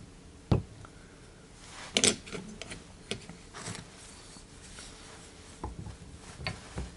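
Scattered metallic clicks and knocks as brake pads and retaining pins are handled and fitted into a Porsche 944 front brake caliper, with a sharp knock about half a second in and a cluster of clicks around two seconds in.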